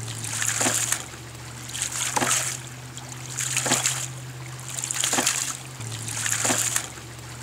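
Hydraulic ram pump cycling: water gushes and splashes out of the weighted waste check valve, then the valve slams shut with a sharp clack. That clack is the water-hammer stroke that drives a surge of water through the second check valve up the delivery pipe. Five cycles, about one every second and a half.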